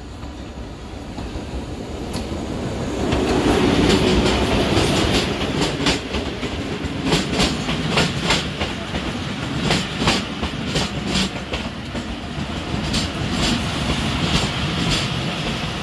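Two passenger trains passing each other on adjacent tracks. The oncoming diesel locomotive grows steadily louder and goes by about three to four seconds in. Then comes the loud, continuous rattle of its passing coaches, with a rapid, irregular clickety-clack of wheels over the rail joints.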